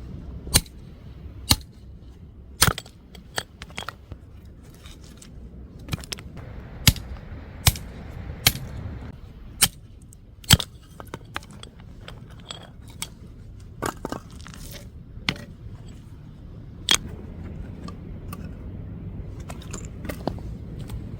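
Irregular sharp clicks and knocks, roughly one every second or two and some much louder than others, over a steady low rumble.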